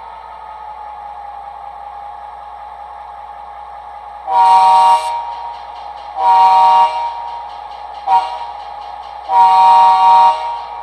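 Diesel locomotive sound from the DCC sound decoder and speaker in an HO scale Atlas GP40-2LW model: the prime mover idles steadily, then the horn sounds long, long, short, long, the grade-crossing signal.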